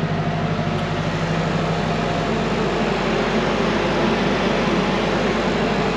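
Parked Volvo semi-truck and the Carrier refrigeration unit on the front of its trailer running steadily: an even engine drone with a broad hiss. A low hum fades in the first second or so.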